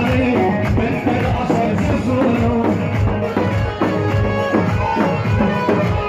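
Loud music with a steady drumbeat and melodic instruments.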